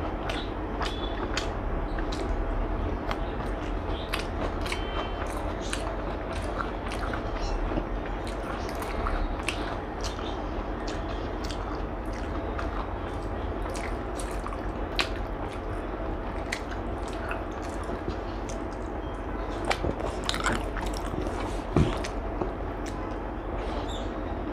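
Close-up eating sounds: chewing and biting with many small wet clicks, over a steady low hum. Near the end there is one sharper knock.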